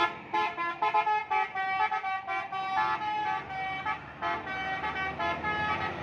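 Tour bus telolet horn: a multi-tone musical air horn playing a quick run of short notes that step between pitches, with a brief break about four seconds in before a few more notes.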